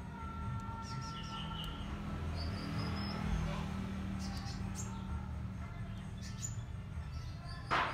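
Faint, short bird chirps over a steady low hum, with one sharp click near the end.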